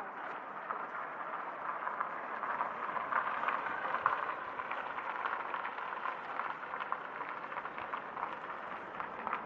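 Steady street ambience, a hiss-like wash of outdoor noise with faint irregular footsteps of someone walking on pavement, swelling a little a few seconds in.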